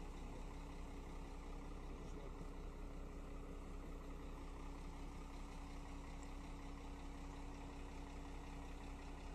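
Vehicle engine idling steadily: a low rumble with a steady hum over it.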